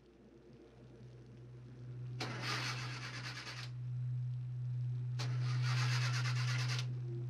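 A car engine being cranked twice, each grinding burst lasting about a second and a half, over a steady low hum.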